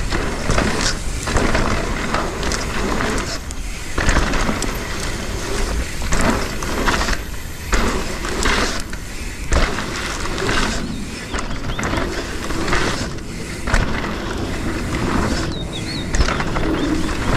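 Mountain bike ridden on a rough dirt trail: continuous tyre rumble with irregular knocks and rattles from the bike over bumps.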